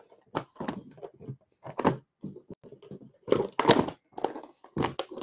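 Sealed boxes of baseball cards being cracked open: packaging torn and handled in an irregular run of crackles, crinkles and light knocks.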